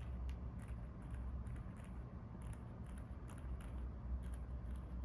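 Stabilized keys (spacebar, shift, enter, backspace) of a Cidoo ABM066 keyboard, fitted with lubed Akko Fairy Silent linear switches, lubed and tuned stabilizers and Cherry-profile PBT keycaps, pressed over and over. The result is short, muted clicks, about three a second, at an uneven pace.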